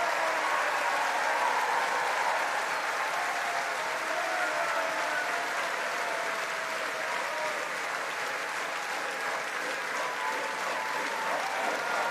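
A large crowd applauding steadily, with a few voices calling out above the clapping.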